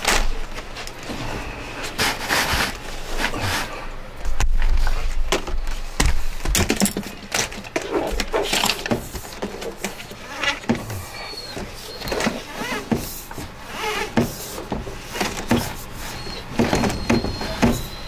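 A plumber's drain snake being fed and worked into a kitchen sink drain pipe clogged with waxy grease: irregular scraping, clicking and knocking of the cable against the pipe. There are heavier thumps about four seconds in and again near six seconds.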